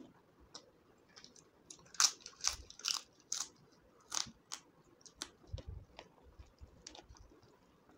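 Close-up chewing of crispy fried potato chips (aloo bhujiya). A quick run of sharp crunches comes about two to four and a half seconds in, then the chewing goes on softer and scattered.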